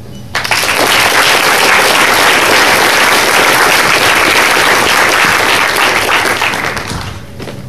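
Audience applauding loudly, breaking out about half a second in and dying away near the end.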